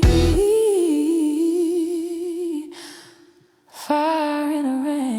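A woman's voice, unaccompanied, sings or hums two long held notes with a wavering vibrato, with a short break between them. The backing band's beat stops just after the start.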